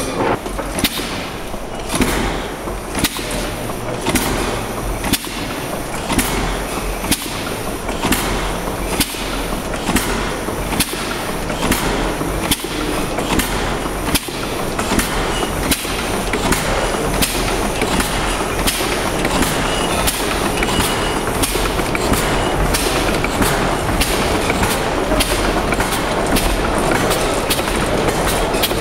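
Bancroft Mill's cross-compound steam mill engine running under steam, its valve gear clicking about twice a second over a steady mechanical clatter. The sound grows gradually louder through the second half as the engine comes up to normal operating speed.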